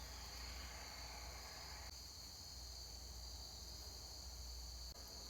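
Crickets trilling steadily and faintly, a continuous high-pitched chorus, over a low background rumble.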